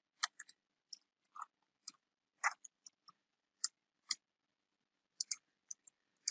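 Computer keyboard being typed on: a run of short, irregular key clicks, with a brief pause about two-thirds of the way through.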